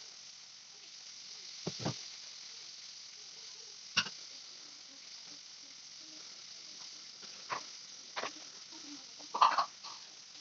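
Tap water running into a stainless-steel sink while a saucepan is scrubbed and rinsed, with a steady hiss of water and a handful of sharp knocks and clatters of the pan and brush against the sink, the loudest about nine and a half seconds in.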